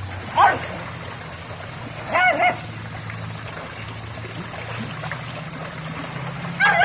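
Pug barking in short high yips: one at the start, two about two seconds in, and a quick run near the end. Under them run a steady low hum and trickling pool water.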